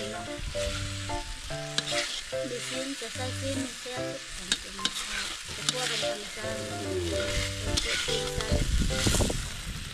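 Vegetables and matsutake mushrooms sizzling as they are stir-fried in a pan, with the spatula clicking and scraping against it now and then. A light background melody plays underneath.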